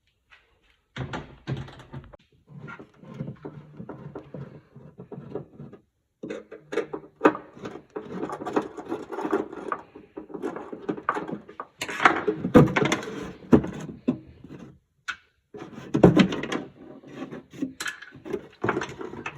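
Irregular knocks, clicks and rattling of car parts and tools being handled during work on a car's rear trim and tail lights, with a few sharper knocks around the middle and later on.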